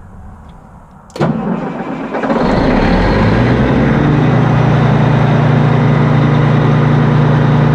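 Reichdrill T-650 W water well drilling rig's diesel engine cranking about a second in, catching, and then running steadily.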